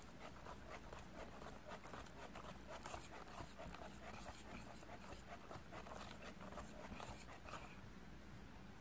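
Wire balloon whisk beating financier batter in a glass bowl as the brown butter is mixed in: faint, rhythmic strokes, about three a second, stopping a little before the end.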